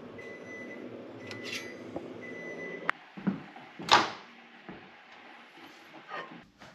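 A kitchen appliance hums steadily, with a thin high whine coming and going, then stops with a click about three seconds in. A second later a microwave oven door is pulled open with a sharp clunk, the loudest sound, and a plate clinks on the turntable near the end.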